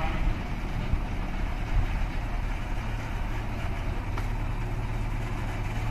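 Small narrow-gauge sugar-railway diesel locomotive running at low speed, its engine a steady low hum.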